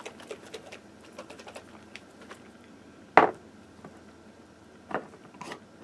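Large glass mason jar of eggs in brine handled with its lid on: small clicks and rattles as it is shaken. About three seconds in it is set down on the stone countertop with a sharp knock, followed by a couple of quieter knocks near the end as the lid is handled.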